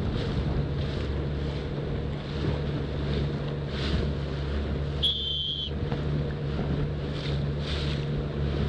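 Wind buffeting the microphone over choppy, splashing water, with a steady low motor hum underneath. A short high beep sounds about five seconds in.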